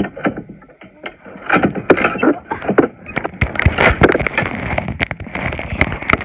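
Handling noise from a phone being moved about close to its microphone: rubbing and rustling with many irregular knocks and clicks.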